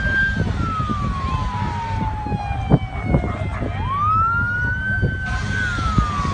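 Slow wailing siren of an airport crash fire-rescue truck. It holds a high note, slides slowly down, sweeps quickly back up about two thirds of the way through, holds, and starts falling again near the end. Underneath runs a steady low rumble, with a couple of sharp knocks about halfway.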